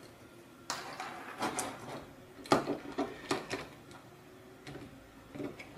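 Small metal nuts and bolts clicking and scraping against the acrylic plates of a robot-arm kit as they are fitted by hand. A string of light clicks and short rubs, the loudest about two and a half seconds in.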